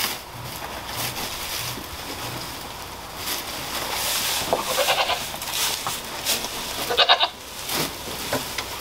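Dry hay rustling and crackling as a bale is worked into a slow-feed hay net. A Nigerian Dwarf goat bleats, loudest about seven seconds in.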